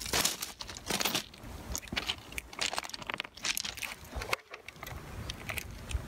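Irregular crunching and clicking of close handling noise, with gravel ballast shifting and rattling under hand or foot.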